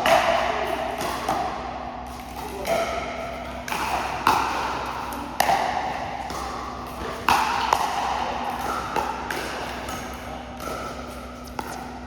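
Pickleball rally: paddles striking the hard plastic ball, about ten sharp pocks at an uneven pace, each ringing briefly.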